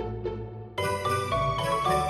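Background music: a few struck melodic notes, then about a second in a louder, brighter layer with high jingling and a chiming melody comes in suddenly.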